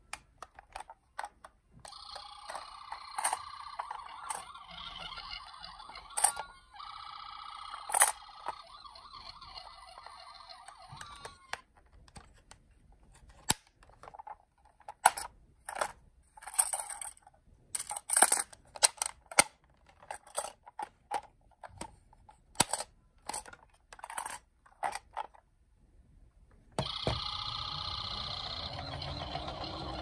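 Toy ambulance playing its electronic siren sound for about ten seconds, then plastic toy vehicles clacking and knocking against each other as they are handled in a cardboard box. Near the end the toy siren starts up again.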